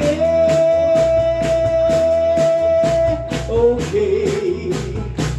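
Live rock-and-roll band with singing: one long note is held for about three and a half seconds over a steady drum beat and guitar, then gives way to shorter bending phrases as the band plays on.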